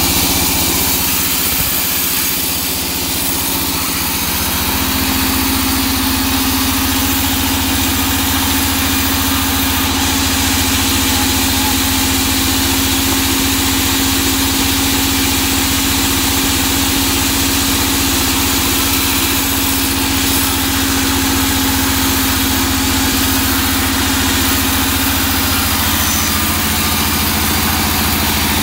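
Large vertical band saw running steadily as a teak log is fed through and sawn lengthwise. A steady humming tone sets in about five seconds in and fades near the end.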